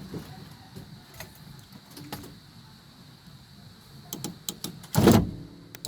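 Car power window motor running as the window glass is driven by a newly wired universal switch, with small switch clicks and a loud knock about five seconds in.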